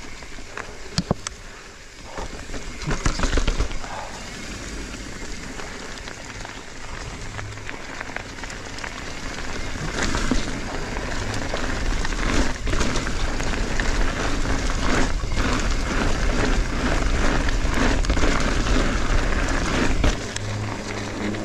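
Mountain e-bike ridden with its motor switched off over a leaf-covered dirt trail: tyres rolling on the rough ground with frequent rattles and knocks from the bike over bumps, under a constant low rumble. It gets louder about halfway through.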